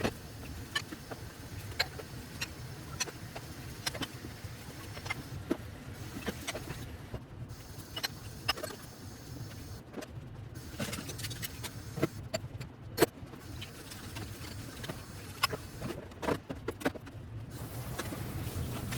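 Many scattered light clicks and knocks at an irregular pace, over a steady low hum.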